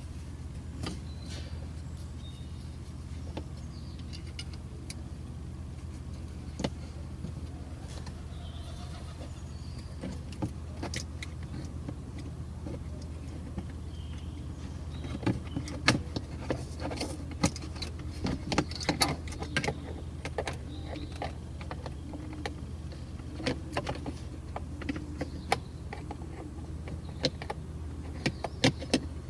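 Plastic clicks, taps and knocks of a car's dashboard trim and headlight switch housing being worked and clipped back into place, thickest and loudest around the middle, over a steady low hum.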